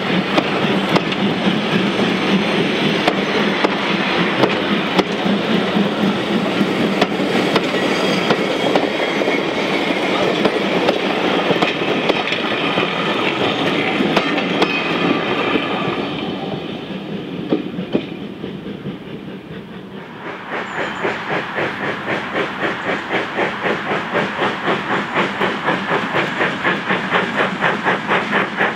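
Passenger coaches rolling past with the clickety-clack of wheels over rail joints, fading away once the last coach has passed. Then an LMS 4F 0-6-0 steam locomotive approaches, its exhaust beats coming at an even rhythm and growing louder.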